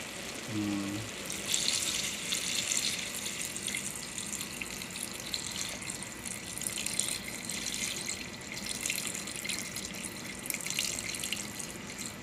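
Water poured from a plastic pitcher into a large aluminium pot of chicken and broth: a steady splashing stream that starts about a second in and keeps going.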